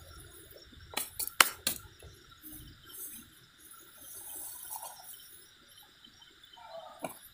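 Night insects, crickets, keeping up a steady high chirring, broken about a second in by a quick run of four sharp clicks, with soft rustling from handling a paper bag of powder.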